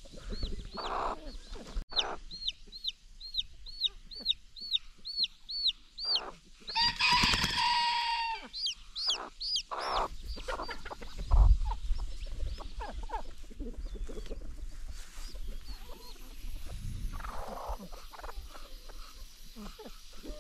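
Newly hatched chicks peeping over and over, about two high peeps a second, with their bantam hen clucking low among them as she guards the brood. About seven seconds in comes a louder, harsh chicken call lasting about a second, and the peeping dies down after about ten seconds.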